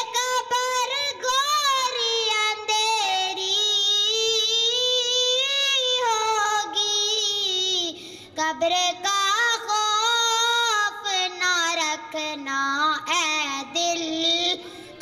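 A boy singing a naat solo with no instruments, long held notes that waver in pitch, with a brief pause for breath about eight seconds in.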